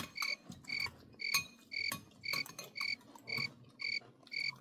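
A repeated chirping sound effect: short, identical high chirps, about two a second, evenly spaced.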